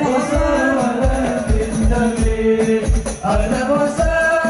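Sholawat, an Islamic devotional song: a sung melody over a steady low drum beat of about two strokes a second, with rattling jingles like a tambourine.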